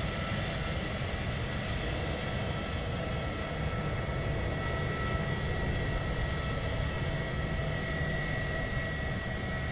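Airbus A321 jet engines running at low thrust as the airliner taxis: a steady rumble with a thin, steady high whine on top.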